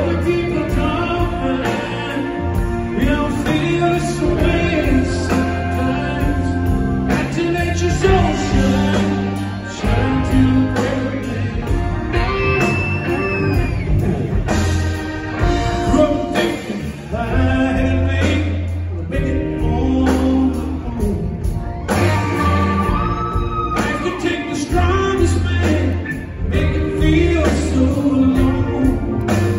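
Live blues-rock band playing a slow song: a male voice sings over electric guitar, organ, bass guitar and drums, recorded from the audience in a concert hall.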